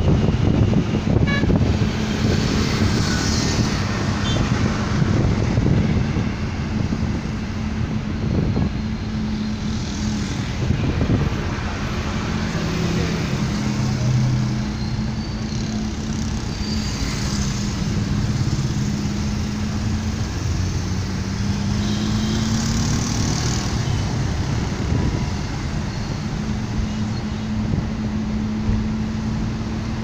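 Steady engine drone and road noise from a moving vehicle in city traffic, with other traffic around it.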